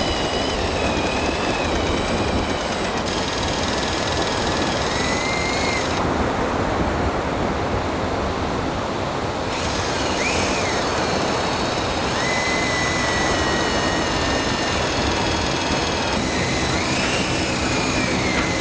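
Cordless drill driving the handle of a Penn Senator 14/0 big-game reel, winding in line: a steady motor whine whose pitch drifts up and down as the load changes.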